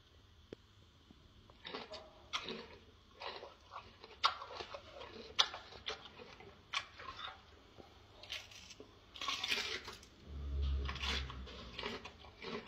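Gorilla chewing red pepper: irregular wet crunches and smacks of the mouth. A low rumble about ten seconds in.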